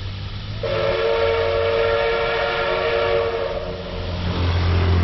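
Approaching locomotive sounding its warning signal for the level crossing: one long, multi-tone blast lasting about three seconds. Near the end a motorcycle engine runs louder as it nears.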